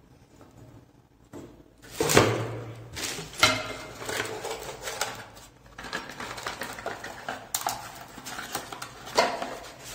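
Unpacking sounds: a cardboard box, tissue paper and plastic wrapping rustling and being moved, with light knocks and clicks as parts are handled, starting about two seconds in.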